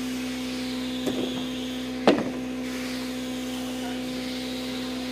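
A steady, even hum, like a small motor running, with a light knock about a second in and a sharper, louder knock about two seconds in.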